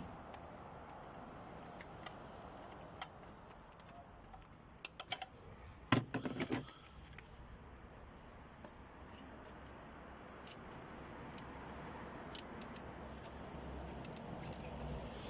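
Scattered metal clinks and rattles of hand tools and bolts while the engine's intake is being unbolted, with a louder clatter about six seconds in.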